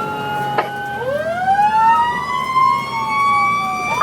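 Fire engine sirens on an emergency run: a slow rising wail climbs over about two seconds while a second siren tone falls across it, with the truck's engine running beneath. Near the end a short rising sweep comes in.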